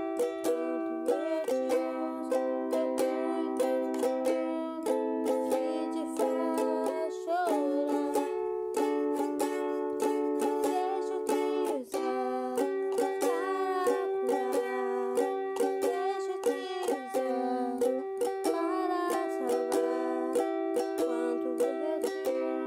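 Ukulele strummed in steady rhythm, the chords changing every few seconds, with a woman singing softly along.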